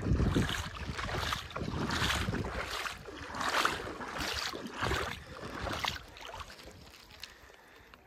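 Footsteps of someone walking at a steady pace, about two steps a second, growing fainter toward the end. Wind buffets the microphone in the first second.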